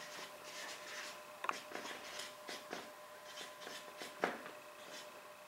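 Room tone in a quiet meeting room: faint rustling and scratching, like paper being handled or written on, with a few light clicks and taps, the sharpest about one and a half and four seconds in, over a faint steady hum.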